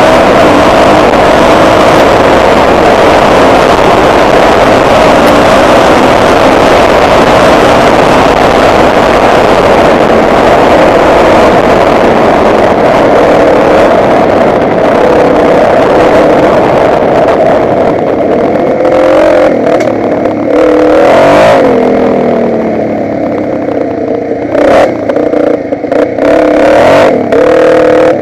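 Motocross bike engine running loud at steady revs, then rising and falling with the throttle from about two-thirds in, with rattles and knocks from riding over rough gravel and mud tracks.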